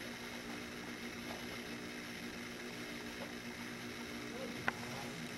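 Steady machine hum holding several fixed tones, with a single sharp click near the end.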